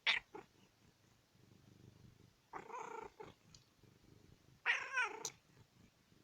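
Domestic cat making odd vocalizations: a short sharp call at the start, then two longer calls with a wavering pitch about two seconds apart, with a faint low purr in between.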